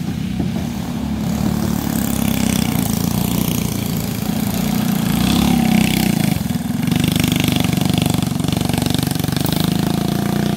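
Go-kart engine running under power as the kart passes close by, loudest in the middle, with a brief dip about six and a half seconds in before it picks up again.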